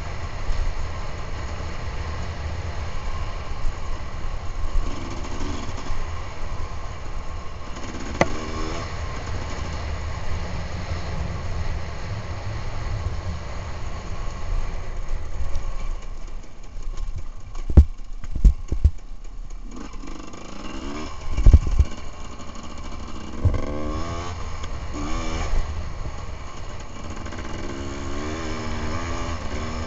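Enduro motorcycle engine running under throttle as the bike rides a dirt trail, its pitch rising and falling with gear changes and throttle, heard from an on-board camera. A few loud knocks a little past halfway, as the bike hits bumps.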